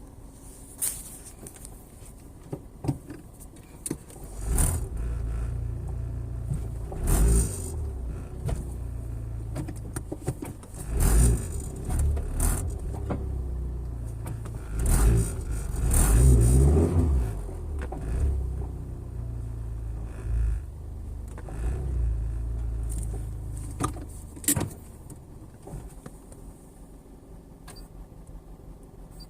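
Cabin noise of a Suzuki Swift Sport (ZC33S) on the move: a low rumble that builds a few seconds in and fades near the end, with short sharp knocks and rattles through it.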